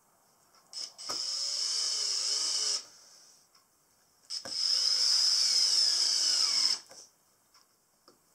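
Makita 18V cordless drill-driver driving wood screws into pine boards: two bursts of about two seconds each, about a second and a half apart, one screw driven home in each.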